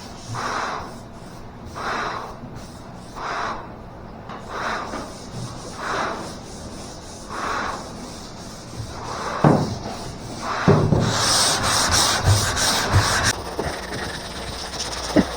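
Hand sanding on a car's bodywork: sandpaper strokes rasping over the panel about once every second and a half. From about ten seconds in comes a louder, quicker stretch of rubbing with a few knocks.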